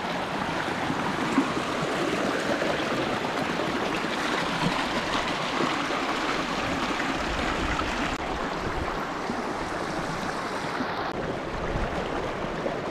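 Shallow creek water babbling over rocks, a steady rushing hiss with no let-up.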